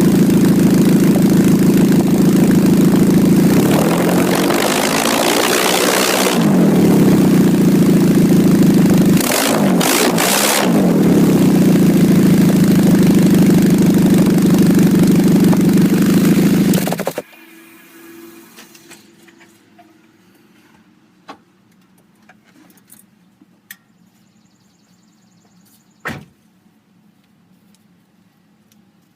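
A 2006 Nissan Altima running loud through an exhaust leak at the flex pipe, revved twice and then shut off suddenly about 17 seconds in. After that it is quiet apart from a few faint clicks.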